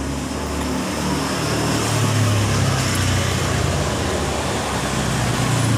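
A motor vehicle engine running, a steady low rumble that grows louder about two seconds in.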